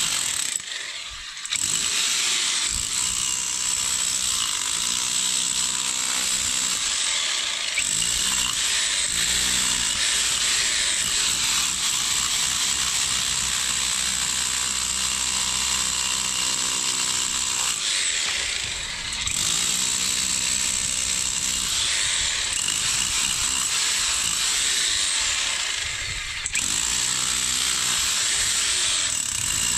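Handheld electric power tool running hard against an old concrete and stone foundation, a steady high whine over a loud grinding clatter. It eases off briefly near the start, about two-thirds of the way in, and again near the end, then picks up again.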